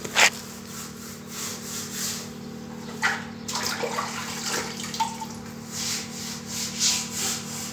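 A brush scrubbing the wet, dirty fiberglass inside of a water tank, in irregular rasping strokes, with a steady low hum underneath.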